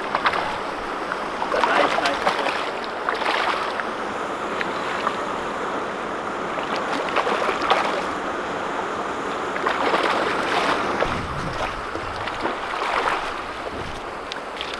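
River water splashing and sloshing as a hooked smallmouth bass thrashes at the surface close to a wading angler, swelling louder several times.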